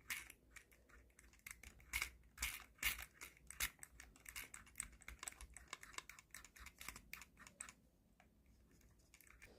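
Scraping at caked grime on the small internal rollers of a ball mouse: a faint, quick, irregular run of small scratchy clicks that stops shortly before the end.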